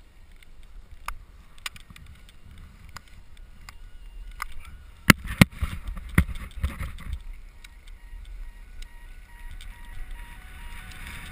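Skis sliding and scraping over snow, with scattered clicks and knocks and two sharp clacks about five seconds in. Near the end a faint, evenly repeating beep joins in.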